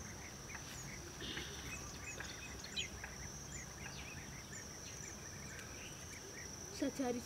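Outdoor ambience: a steady high-pitched insect drone with scattered short bird chirps over it.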